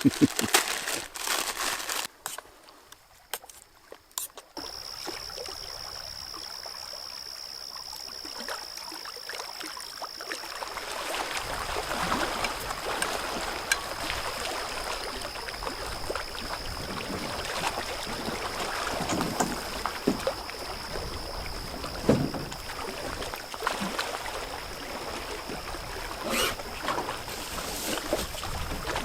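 Canoe moving on a lake: water washing against the hull, with occasional paddle strokes. A steady high-pitched whine runs alongside from a few seconds in.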